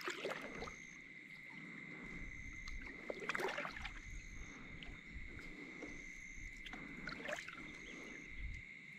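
Fishing kayak moving slowly over calm water, with faint water sounds along the hull and two louder swishes of water about three and a half and seven seconds in. A steady high-pitched tone runs underneath.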